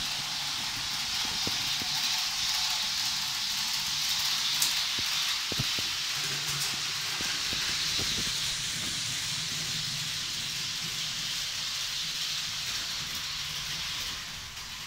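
Model trains running on a layout: a steady hissing rush of wheels on the track, with a low motor hum that comes and goes and a few sharp clicks.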